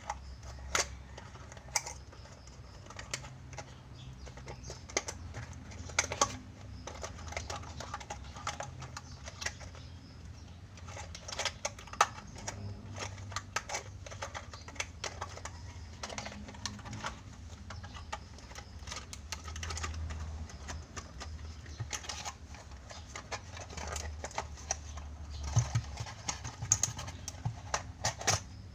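Irregular small clicks and taps of a plastic toy and its packaging being handled while the ties holding the toy in place are undone, over a low steady hum.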